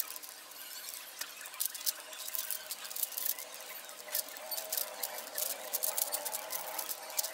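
Rapid irregular plastic clicking of a 5x5 puzzle cube's layers being turned by hand.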